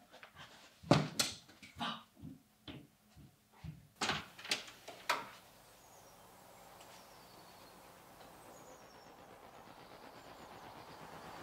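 Footsteps, irregular thuds about two a second, for the first five seconds. Then a smooth hiss that swells steadily louder to the end.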